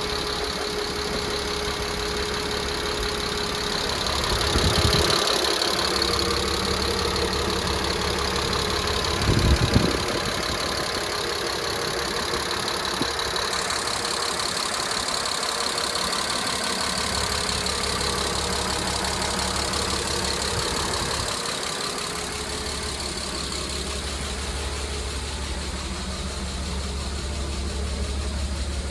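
Mercedes-Benz M104 2.8-litre straight-six running, with a ticking that the owner believes is a hydraulic lifter tick. The engine gets louder for a couple of seconds about four seconds in, and there is a brief bump about ten seconds in.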